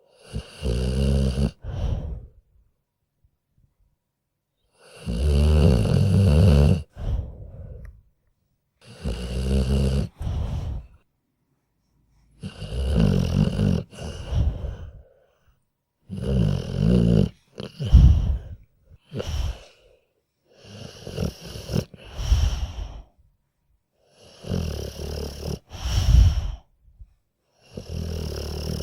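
A sleeping dog snoring: about eight snoring breaths, one every three to four seconds. Each is a low, buzzing drawn-in breath followed by a shorter breath out, with short gaps between.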